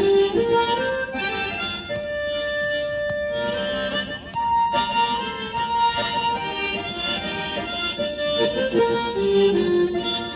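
Harmonica playing a melody, with several notes often sounding together as chords.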